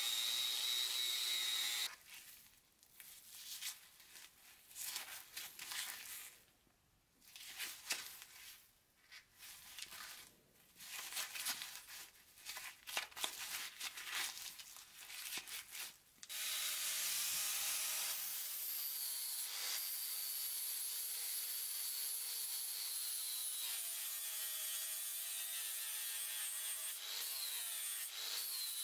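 Angle grinder with a wire cup brush running against a rusty iron hammer head, cutting off about two seconds in. Then about fourteen seconds of irregular scraping and handling sounds. About sixteen seconds in, an angle grinder with a flap disc starts and runs steadily with a high whine, grinding the hammer head's steel; its pitch wavers near the end.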